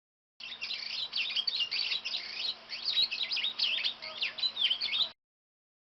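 A songbird singing a rapid, continuous run of high chirping and warbling notes that starts and cuts off abruptly.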